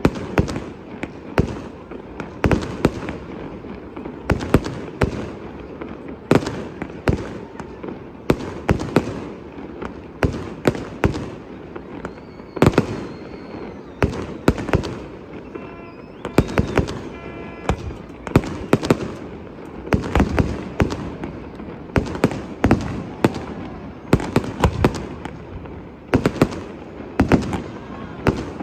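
Fireworks display: aerial shells bursting in a rapid, irregular string of bangs, often several a second, each trailing off before the next.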